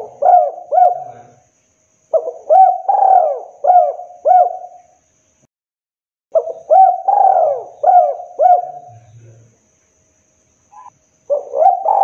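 Spotted dove (tekukur) cooing in repeated phrases of four or five quick, swooping coos, a new phrase starting every four to five seconds.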